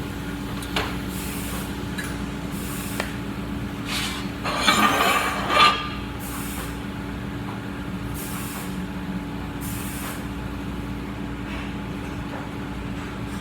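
Welding with the arc pulsed by hand: short hissing surges come and go every second or two over a steady machine hum. A louder rasping burst lasts about a second and a half, around five seconds in.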